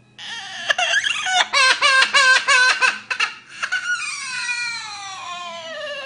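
Parrot imitating a child crying: a run of short, sobbing cries, then from about halfway a long drawn-out wail that slowly falls in pitch.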